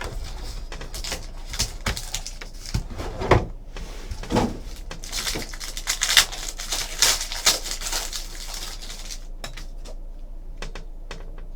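A sealed trading-card box being opened and its contents handled: packaging crinkling and tearing and cardboard rustling, with scattered clicks and knocks. The noise is busiest in the middle and thins out near the end.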